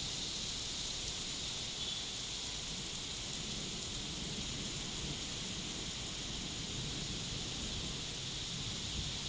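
Steady rain hiss during a thunderstorm, with an unsteady low rumble of wind underneath.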